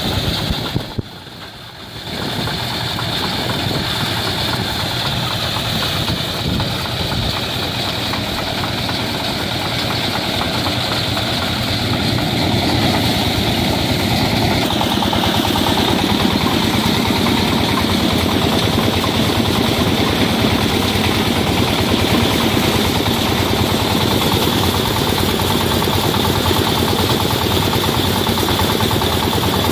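Mobile soya bean thresher running, its engine and threshing drum making a loud, steady mechanical drone while bean plants are fed in. The sound drops briefly about a second in, then carries on unchanged.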